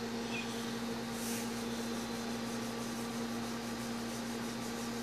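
Steady low electrical hum with a light hiss from the Palomar Elite 500 base amplifier's built-in regulated power supply, switched on and idling with no load.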